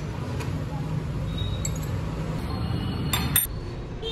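Steel spanners clinking against the front axle nuts of a moped's spoked wheel: a few light metallic clicks, then a bright, short run of clinks a little after three seconds in, over a steady low hum.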